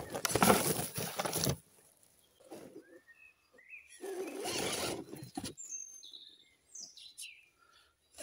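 A Carson RC crawler clawing up a steep dirt and root bank in two bursts of throttle, its tyres and drivetrain scrabbling, the first burst loudest. Birds chirp in the gaps.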